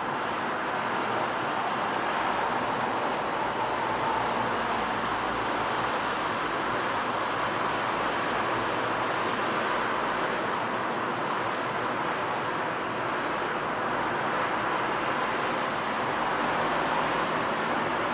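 Steady hum of distant road traffic, with a few short, high bird chirps now and then.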